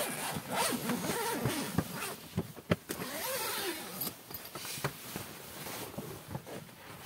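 Rooftop tent's door zipper being pulled open in a run of scratchy rasps and clicks, with the tent fabric rustling as the door panel is pushed aside.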